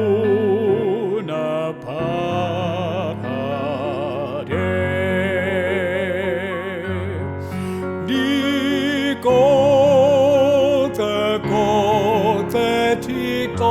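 Choral music: several voices singing held chords with vibrato over sustained low bass notes, the chords changing every second or two.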